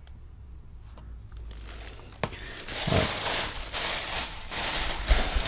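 Clear plastic bag crinkling and rustling as it is handled and crumpled, starting about two and a half seconds in after a few faint clicks.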